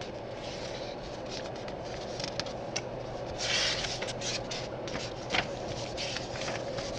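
Scattered rustling, scraping and small clicks over a steady background hum, with a longer rustle about three and a half seconds in.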